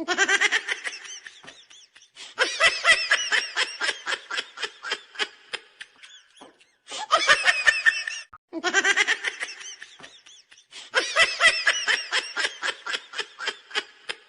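Human laughter in about five bouts of rapid ha-ha pulses, each bout starting loud and trailing off. Some bouts repeat the same pattern, as a looped laughter sound effect does.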